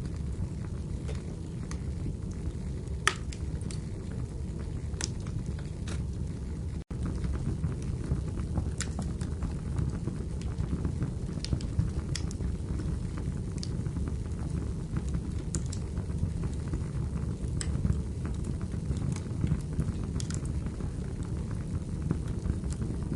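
Wood fire burning in a fireplace: a steady low rumble of flames with scattered sharp crackles and pops from the burning firewood, coming every second or two.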